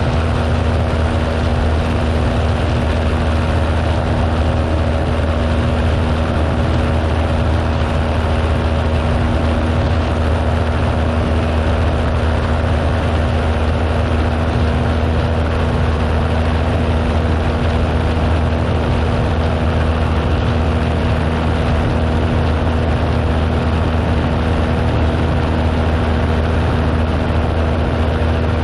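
Cessna 172M's four-cylinder Lycoming piston engine and propeller running steadily at climb power in flight, a constant low drone with no change in pitch.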